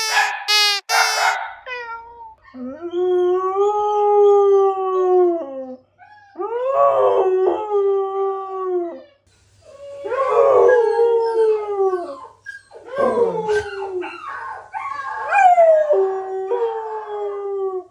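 A puppy crying: a few quick yelps at the start, then long drawn-out howling whines, four of them, each holding a steady pitch before falling away at the end.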